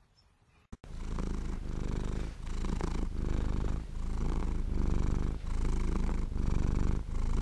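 Domestic cat purring close up. It starts suddenly about a second in, then keeps a steady rhythm of breaths in and out, a little under one a second.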